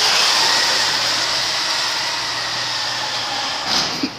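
Radio-controlled car's electric motor running at speed, a steady high whine with rushing noise, heard close up. A couple of knocks near the end.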